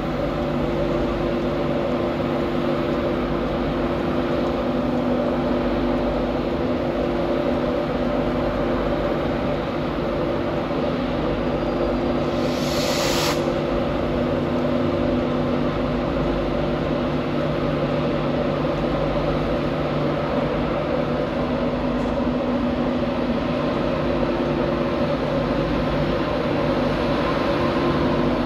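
LNER Class 91 electric locomotive 91101, an AC electric, humming steadily with a fixed-pitch electrical whine from its equipment. A short burst of hissing air comes about halfway through.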